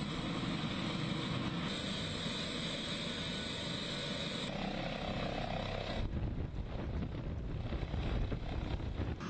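Helicopter running with its rotor turning, the sound changing abruptly a few times. In the last few seconds it becomes a lower, pulsing rotor sound as the helicopter lifts off.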